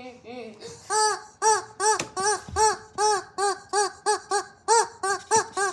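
A child imitating a hen's clucking: a quick run of short, rising-and-falling 'bawk' calls, about three a second, fainter for the first second.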